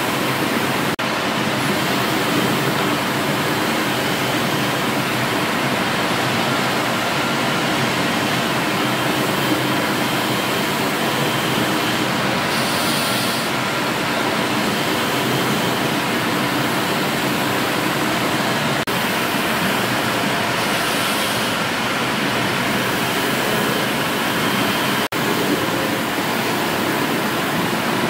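Stationary steam engines running, a beam engine among them: a steady, even mechanical running noise with no clear beat, with brief louder hissy moments.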